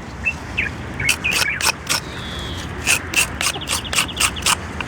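An irregular run of sharp clicks and scratches, with a few short high chirps in the first second and a half.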